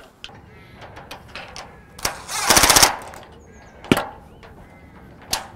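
A DeWalt cordless impact driver hammering a bolt tight: one rapid rattling burst of about half a second, about two and a half seconds in, with a few sharp single clicks around it. It is tightening the bolts that fix the linking bar to each louvre.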